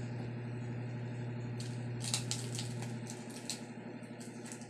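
Crunching bites and chewing of crispy deep-fried pork intestine, close to the microphone, a cluster of sharp crackles about two seconds in, over a steady low electrical hum.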